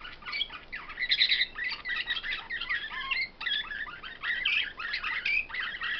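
Caged songbirds singing: a fast, unbroken run of twittering chirps and trills, high in pitch.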